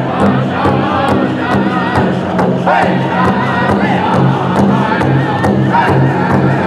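Powwow drum group singing loudly in unison with high, wavering voices while beating a large shared bass drum in a steady, even pulse.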